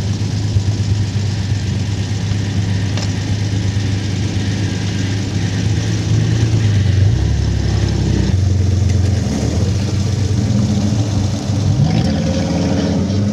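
Off-road 4x4 vehicle's engine running, its pitch shifting as the throttle is worked, with the revs rising near the end.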